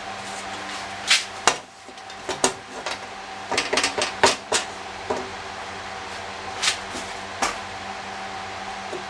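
About a dozen irregular sharp knocks and clanks from metal dash parts being pressed and fitted together, clustered in the first seven seconds or so, over a steady background hum.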